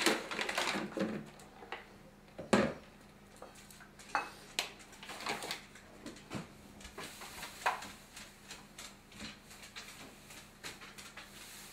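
Scattered clinks and knocks of kitchenware and the rustle of a paper sugar bag while a cup of sugar is measured out; the loudest knock comes about two and a half seconds in.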